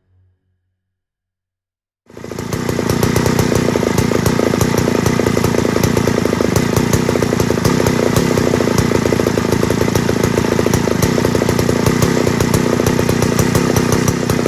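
Two-stroke chainsaw engine comes in suddenly about two seconds in and runs loud and steady.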